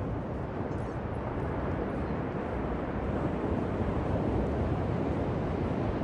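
Ocean surf washing onto a beach: a deep, steady wash of noise with no single wave standing out.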